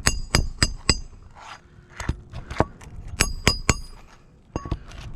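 Hammer driving roofing nails into a new asphalt shingle: about ten sharp, ringing strikes in quick groups, each about a third of a second apart, with short pauses between groups.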